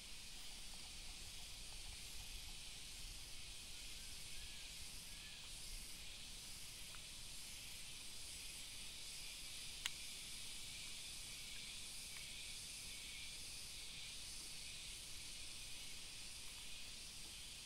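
Faint, steady outdoor ambience: an even high hiss with a little low rumble, and one sharp click about ten seconds in.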